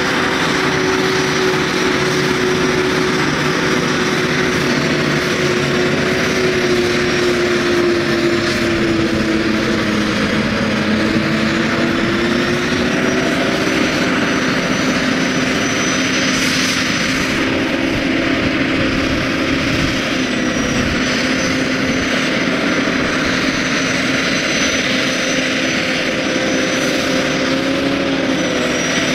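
A Claas self-propelled forage harvester and a Case IH tractor hauling a silage trailer, both running steadily while maize is chopped and blown into the trailer. The sound is a continuous machinery drone with a thin high whine, its engine pitch drifting slowly up and down.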